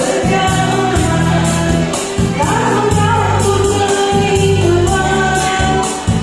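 Backing music with a steady beat and a sustained bass line, and a voice singing over it.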